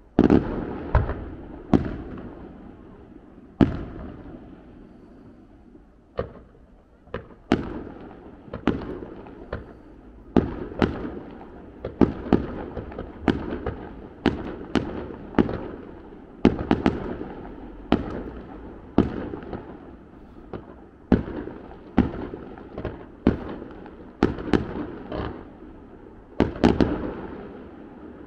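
Fireworks display: dozens of sharp bangs at irregular intervals, often one or two a second, each trailing off in an echoing rumble.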